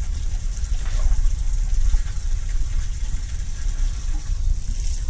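Water hissing steadily from a hose into a trough, over a heavy, steady low rumble.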